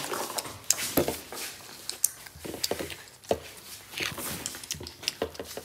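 Scattered light clicks and knocks of plates, cups and hands being handled at a table during eating.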